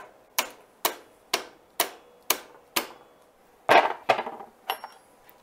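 Soft-faced mallet tapping a chain sprocket onto a planer's outfeed roller shaft: seven light, even taps about two a second. About four seconds in comes a louder clunk as the mallet is set down on the machine's table.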